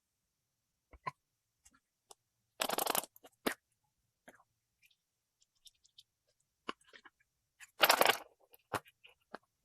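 Toys being handled: scattered light clicks and knocks, with two longer scraping, crunching rustles, one about two and a half seconds in and one about eight seconds in.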